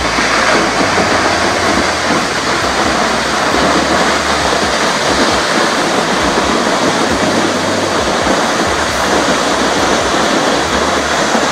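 Nevada Fall, a large waterfall, pouring down a granite cliff: a loud, steady rush of falling water and spray with no break.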